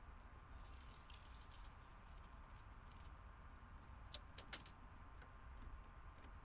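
Near silence with a few faint clicks and taps, the clearest about four and a half seconds in, from a homemade antenna being handled and adjusted on a car roof.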